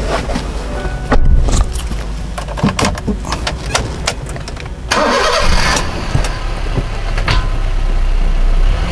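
A vehicle engine running with a steady low rumble, with scattered clicks and knocks and a short rushing burst of noise about five seconds in.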